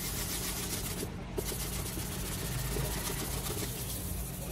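A steady low mechanical hum, even throughout, with no distinct strokes or impacts.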